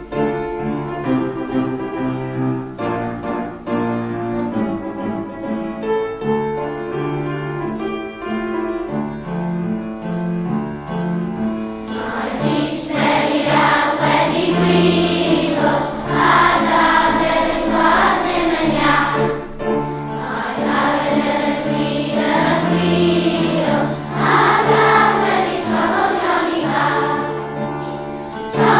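Background music: an instrumental introduction, then a choir comes in singing about twelve seconds in.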